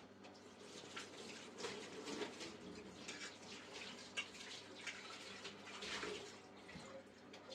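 Water splashing and trickling in irregular bursts, with small knocks, as in hand washing at a tap or basin.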